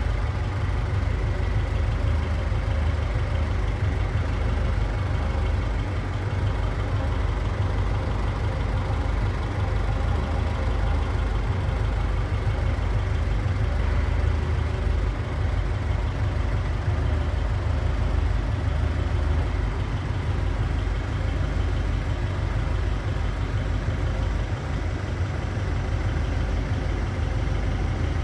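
1931 Ford Model A roadster's engine running steadily at a low, even pitch, heard from inside the car.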